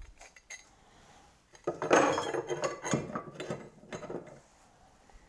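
Metal hand tools clinking and rattling against each other as they are handled at a tool shelf. It is a burst of clatter of about three seconds, beginning a second and a half in.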